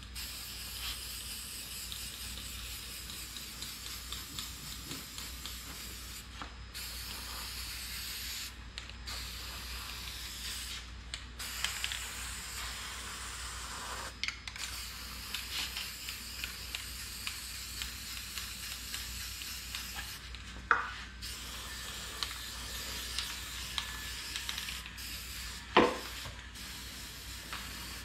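Aerosol can of Rust Reformer spraying in long hissing passes onto a car's metal floor pan, with brief breaks between passes. Two sharp knocks, the louder one near the end.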